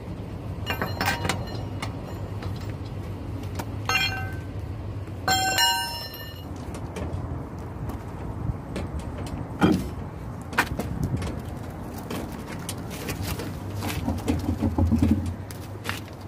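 Lug nuts being worked off the rear steel wheel of a Toyota Land Cruiser pickup with a lug wrench and by hand: scattered metal clicks and knocks, with two ringing metallic clinks about four and five seconds in, over a steady low hum.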